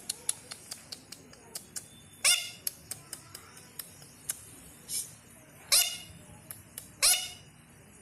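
Pet parrot calling in three loud squawks, about two, five and a half and seven seconds in, over a run of short, sharp clicks.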